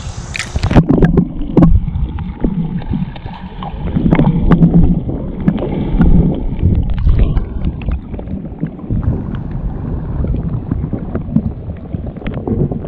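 Kayak paddling on a shallow creek: uneven water splashing with scattered knocks, and wind buffeting the microphone.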